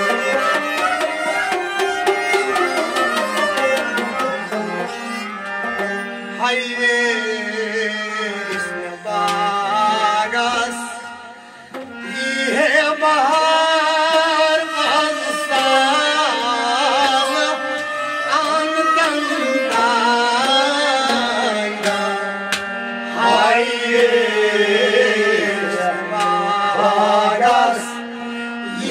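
Music of a sung kalam, a devotional poem: a melodic accompaniment with a voice singing in places. Drum strokes run through the first third.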